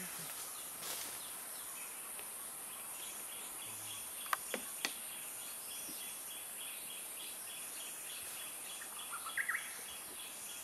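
Forest ambience: a steady high insect drone, with a repeated call pulsing about four times a second from a few seconds in. Three sharp clicks come about four and a half seconds in, and a short bird chirp near the end.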